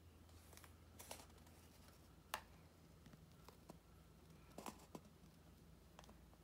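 Near silence, broken by a few faint taps and scratches from hands handling a cardboard sheet. The sharpest click comes a little over two seconds in.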